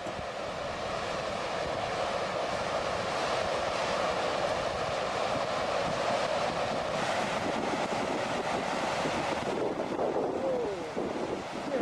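Steady rushing of a flash flood's fast-moving water, with wind buffeting the microphone.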